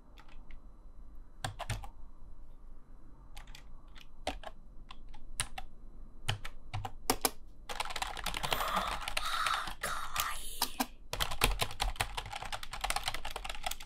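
Typing on a computer keyboard: scattered single keystrokes at first, then fast, dense typing from about halfway through, broken by a brief pause before it picks up again.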